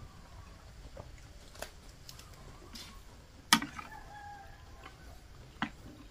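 A spoon clinking and scraping in a ceramic bowl while someone eats. There are a few sharp knocks, the loudest about three and a half seconds in.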